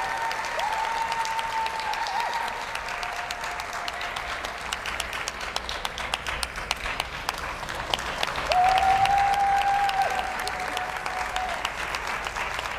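Arena audience applauding steadily, a dense patter of many hands clapping. Held high calls ride over it, the loudest about eight and a half seconds in, lasting a second or so.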